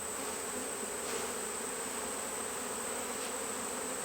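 Honey bees buzzing around an open hive: a steady, even hum with a faint click or two from frames being handled.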